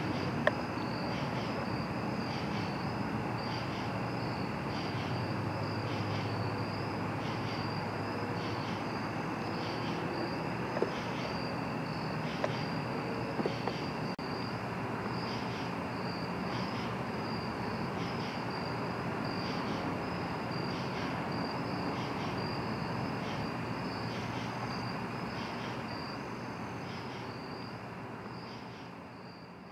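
Crickets chirping: a steady high trill with a regular pulse about once a second, over a low, even background hiss. The sound fades out near the end.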